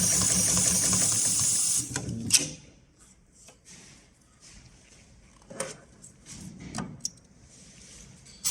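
HighTex 71008R automatic rope sewing machine running with a fast, even rhythm, stopping about two seconds in with a sharp click. After that come only a few faint clicks and knocks.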